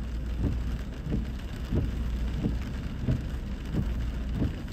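Heavy rain falling on a car, heard from inside, over a steady low rumble. Soft knocks come about every two-thirds of a second.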